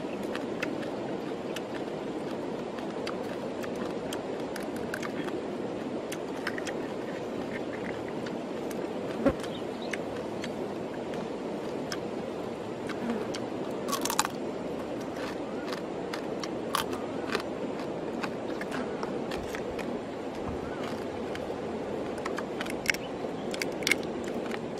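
Grilled crab shells being cracked and picked apart by hand, heard as scattered sharp clicks and small cracks over a steady rushing background noise.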